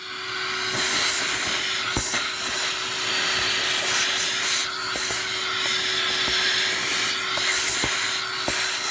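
Vacuum hose sucking up aluminium chips from a machined plate: a steady rushing hiss with a constant hum, and scattered sharp clicks as chips rattle into the nozzle.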